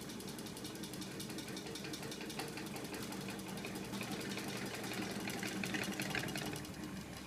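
Homemade battery-powered electric-motor flywheel rig running: a steady motor hum with a fast, dense rattling tick from the moving arms and cranks. The rattle grows louder and higher about five seconds in and eases off near the end.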